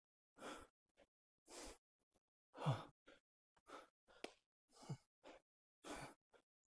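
A man breathing hard in rhythm with barbell bent-over rows: short sharp breaths about once a second, two of them with a brief low grunt.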